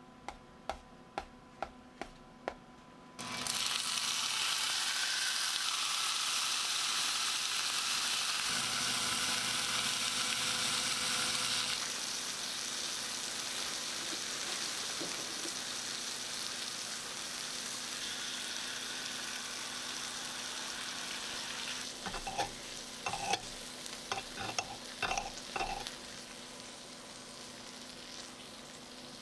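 A few short taps as a rice paddle pats steamed rice onto a wooden tray. About three seconds in, a steak on a hot sizzling plate starts hissing loudly; the sizzle eases a little later but keeps going. Near the end there is a run of clinks and taps as a fork works against the plate.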